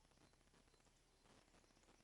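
Near silence: faint outdoor background hiss, with no clear bird call.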